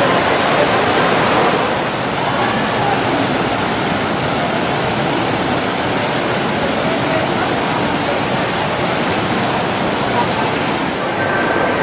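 Steady splashing of an ornamental fountain's water jets falling into their basin, over the murmur of a crowd in a large hall.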